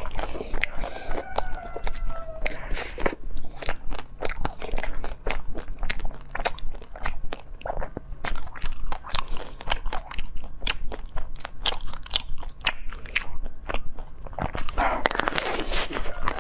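Hard ice being bitten off a frozen block and crunched between the teeth, close to the microphone: a quick run of crisp cracks and crunches throughout. Near the end a bigger, louder bite lands, and just after the start and again near the end comes a short falling squeak.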